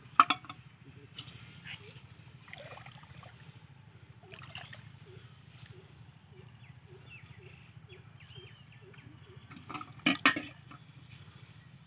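Water splashing and sloshing in a metal pot as hands work a plastic bottle fish trap and fish in it. The loudest splashes come just after the start and again about ten seconds in. Faint short calls repeat about twice a second in between.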